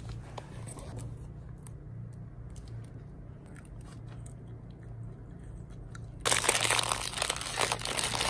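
Plastic sweet wrapper crinkling loudly as it is handled and torn open, starting about six seconds in after a few quiet seconds.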